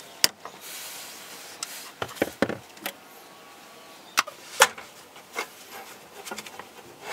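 Pliers clicking and knocking against a metal cable clip and fittings under a kei truck's chassis as a cable is loosened: a string of sharp, irregular clicks and taps, the loudest a little past halfway.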